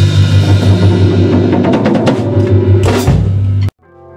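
Rock band playing loudly on electric guitar, bass guitar and drum kit, the drums running into a fast fill of rapid hits and a big crash about three seconds in. The sound cuts off abruptly just after, and a quieter electric guitar comes in and swells.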